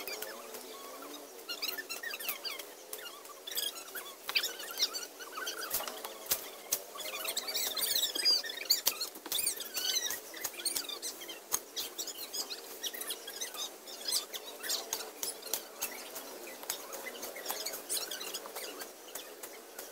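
A hoe chopping into weedy ground and roots, many short sharp strikes at an uneven pace, while small birds chirp busily over it.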